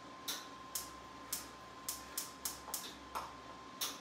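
Gas range burner igniter clicking, a sharp spark tick about every half second, as a burner is lit and set to low.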